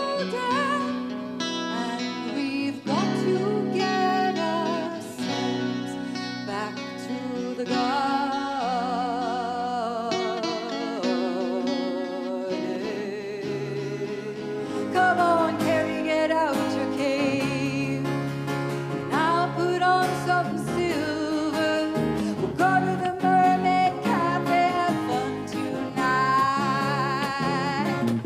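A woman singing a slow folk song in long, wavering held notes, accompanied by acoustic guitar.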